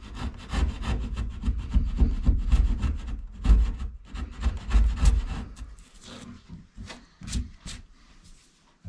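A chisel scraping and paring MDF in quick short strokes, cutting a shallow recess in a door edge for a ball catch's faceplate. The scraping stops about five or six seconds in, leaving a few separate light scrapes and taps.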